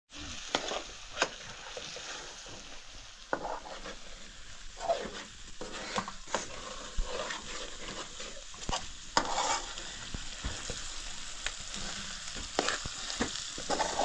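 Chopped vegetables sizzling as they fry in an aluminium pan on a gas burner, stirred with a metal spoon that scrapes and clicks against the pan again and again.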